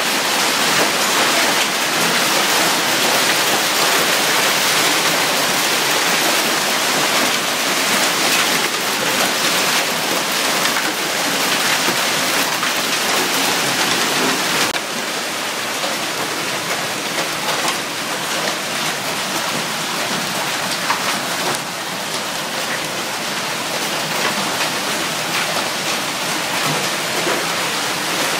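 Torrential rain pouring down in a thunderstorm, a loud, dense, steady hiss of water hitting surfaces. It drops a little in level about halfway through.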